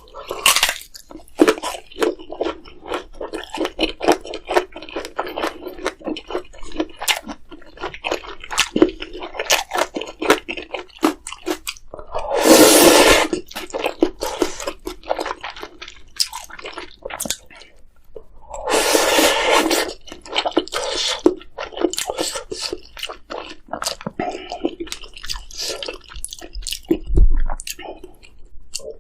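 Close-miked eating of spicy ramyeon: continuous wet chewing with rapid smacking clicks. Two long, loud noodle slurps come about twelve seconds in and again about nineteen seconds in.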